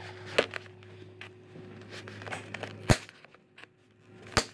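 Hands handling a carded action-figure blister pack: a few sharp plastic clicks and crinkles, the loudest about three seconds in, over a faint steady low hum.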